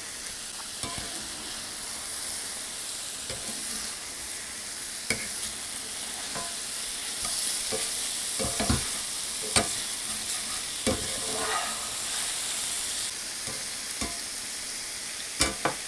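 Sliced squash and zucchini sizzling steadily in a cast-iron skillet as their water cooks out. A metal spatula stirs them, scraping and clicking against the pan several times.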